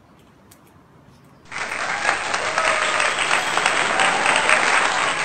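Applause, a sound effect dubbed in, starting abruptly about a second and a half in.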